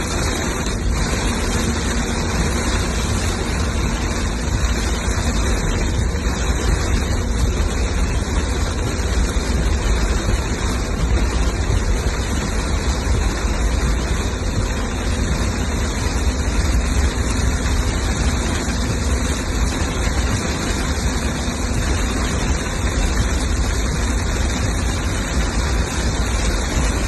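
Torrential downpour: a steady, loud hiss of heavy rain over a deep continuous rumble.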